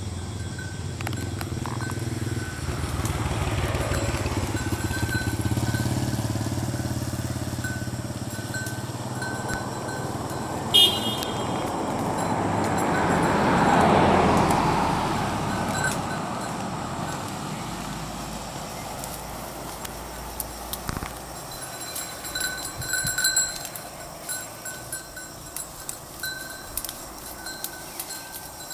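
Passing road traffic, mostly motorbike engines: an engine hum early on, then a vehicle going by that swells to its loudest about halfway through and fades away. A short sharp sound comes just before that pass.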